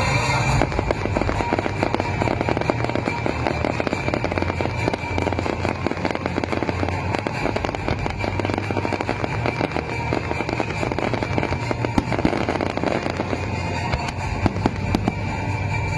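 Fireworks display: a dense, continuous crackling and popping of aerial shells, with music playing along.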